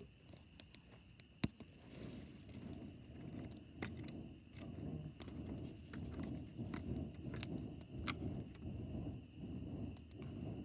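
Campfire burning with irregular sharp crackles and pops, one loud snap about one and a half seconds in, over a fluctuating low rumble.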